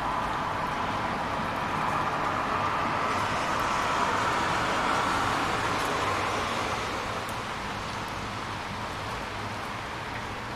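City rain with traffic: a steady hiss that swells about two seconds in and fades after about seven seconds as a vehicle passes on the wet road.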